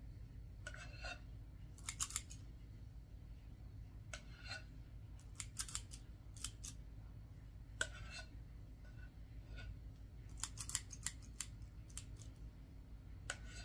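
Spring-loaded cookie scoop's metal release lever clicking faintly in short clusters every second or two as small balls of cream cheese filling are scooped and released.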